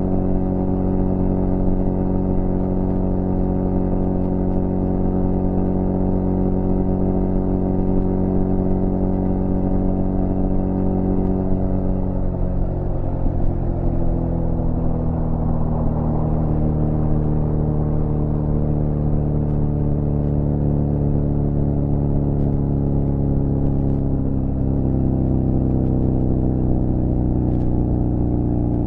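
Suzuki GSF 650 Bandit's inline-four running steadily through a cut-down Beowulf exhaust with no baffle. About twelve seconds in its pitch drops and, after a brief rougher patch, settles at a lower, steady note.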